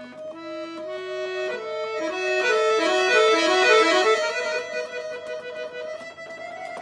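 Giulietti chromatic button accordion playing: runs of quick, short notes step upward over a sustained note, swelling loudest around the middle, then easing back to a held chord.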